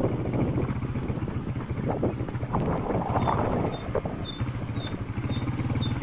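Wind buffeting the microphone, a steady low rumble with a held low hum under it. From about three seconds in, short high chirps repeat about twice a second.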